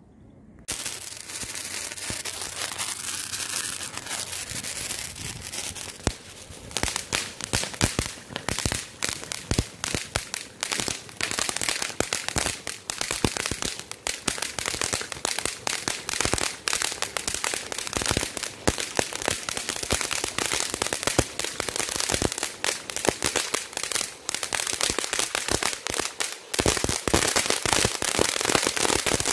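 Crackling fountain (a Ravikannan 'Tweet' mini fountain) firing from the ground. A steady hiss of sparks starts about a second in. From about six seconds in, a dense, rapid crackle of small pops joins it and keeps going.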